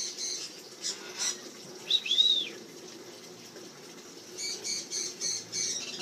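Golden conure calling: a run of short high chirps, one loud rising-and-falling squawk about two seconds in, then another quick run of chirps near the end, with a couple of light clicks around one second in.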